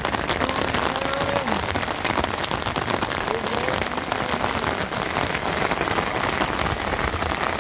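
Steady rain falling on plastic tarp roofing and stony ground, a dense run of small drop hits.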